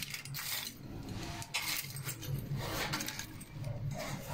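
A heap of loose metal screws and fittings clinking and rattling as a hand rummages through them, in several short spells.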